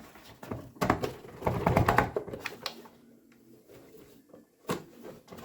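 Clicks, knocks and rattles of plastic housing parts being handled as a vacuum cleaner is taken apart to reach its motor. A busy run of clatter fills the first half, and a single sharp knock comes near the end.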